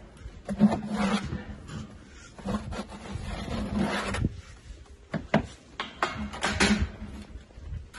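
Plasterer's steel trowel scraping and scooping mortar out of a plastic bucket onto a hawk: a run of irregular scrapes, with a few short sharp knocks of the trowel against the bucket and hawk.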